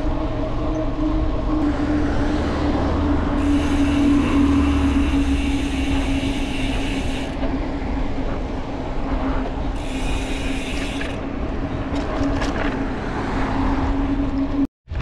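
Steady road and wind noise from a bicycle ridden along an asphalt road, with a constant low hum and two stretches of added high hiss in the middle. The sound cuts out briefly near the end.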